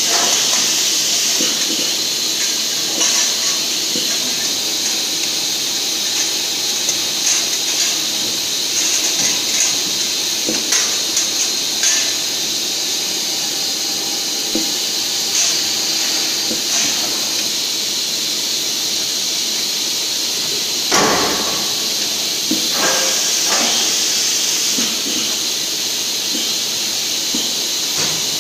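Factory machine noise from an injection-molding machine and its pneumatic pick-and-place robot: a steady hiss of air with scattered clicks and knocks. A louder noisy burst comes about 21 seconds in, and a smaller one about two seconds later.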